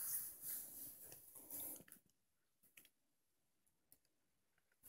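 Rustling and scuffling of a small dog tussling on a satin bedspread for about two seconds, then near quiet with a few faint clicks.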